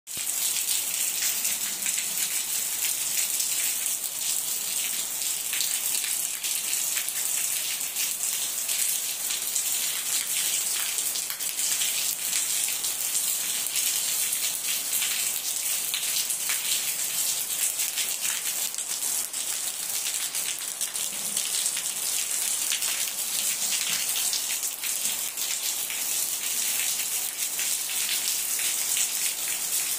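Heavy rain falling on flooded ground and puddles: a steady, even hiss made of countless small drop hits.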